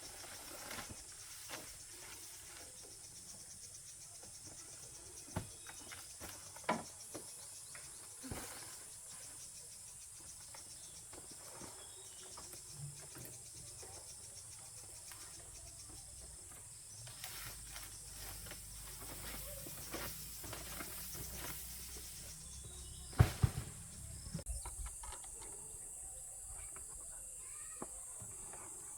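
Steady high-pitched chorus of crickets or similar insects, with scattered light knocks and clatter and a sharp double knock about two-thirds of the way through.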